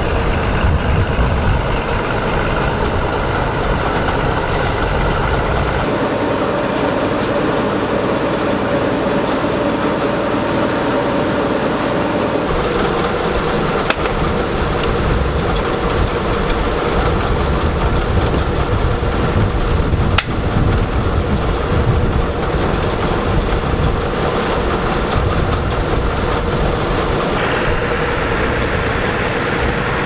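1977 Gleaner M2 combine's engine running steadily. Its sound shifts abruptly a few times.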